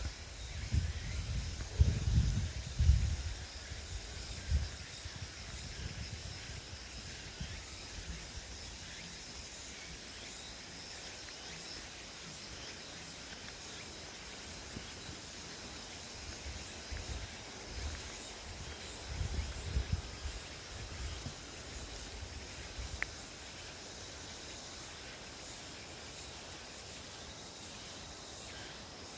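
Outdoor nature ambience: a steady high-pitched hiss of insects. Low rumbling bumps on the microphone come in the first few seconds and again about two-thirds of the way through.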